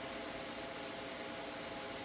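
Steady background hiss with a faint, even hum: room tone, with no distinct event.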